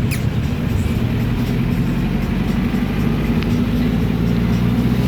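A heavy engine running steadily with a low hum, getting a little louder near the end.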